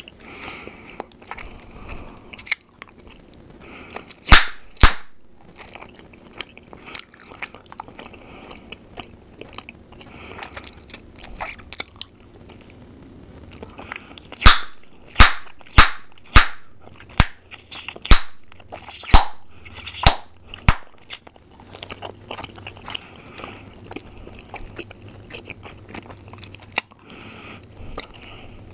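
Bubble gum chewed close to the microphone with soft wet smacking, broken by sharp gum pops: two about four seconds in, then a run of about a dozen, roughly two a second, from about 14 to 21 seconds in.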